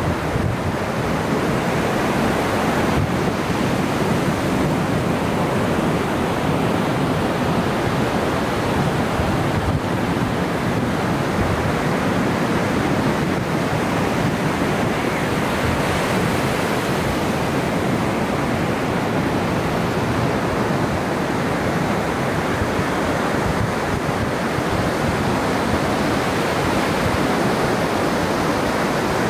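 Ocean surf washing onto the beach, a steady rush of noise with no single wave standing out.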